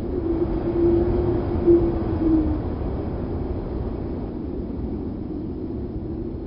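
Wind sound effect: a steady low rumbling rush of wind, with a held hooting tone over it for the first two and a half seconds that dips slightly in pitch and stops.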